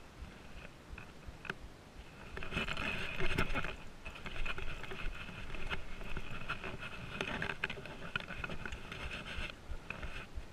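Water splashing and sloshing around a stand-up paddleboard, with scattered light knocks on the board; near the end a paddle dips and strokes through the water.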